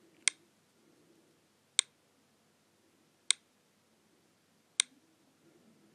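iPhone VoiceOver's page-loading ticks: four short, sharp clicks about a second and a half apart, the screen reader's sign that a web page is still loading in Safari.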